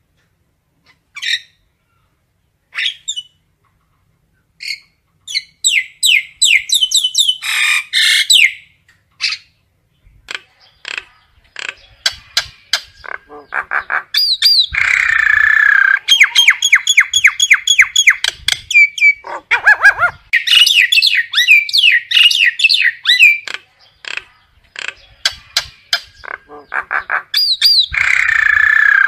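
Common myna flock calls: a few separate short calls, then from about five seconds in a dense run of rapid repeated harsh notes, rattles and whistles.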